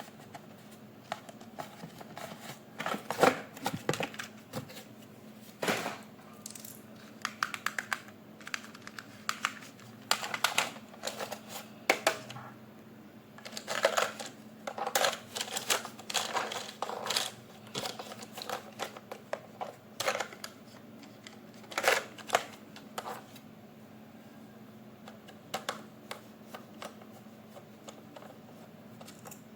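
Irregular clicks, knocks and short crinkling rustles of plastic packaging and toy parts being handled during an unboxing, thinning out near the end, over a faint steady hum.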